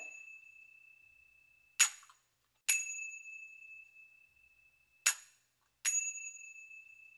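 Small hand cymbals of the Koodiyattam ensemble (kuzhitalam) struck in a slow, even pattern. A short, stopped stroke is followed by one left ringing with a clear high tone that fades over a couple of seconds, twice over.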